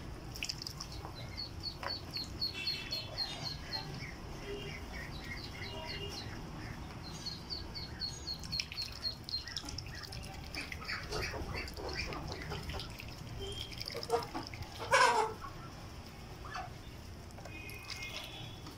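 A mixed flock of young chickens and ducks calling: runs of rapid, high, repeated peeps and clucks, with one louder call about fifteen seconds in.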